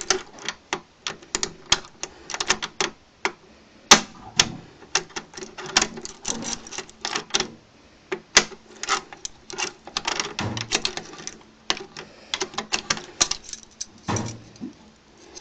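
A try-out key rattling and clicking in a 3-lever lock as it is jiggled and turned to lift the levers: rapid, irregular metallic clicks with a few sharper ones, the lock not opening.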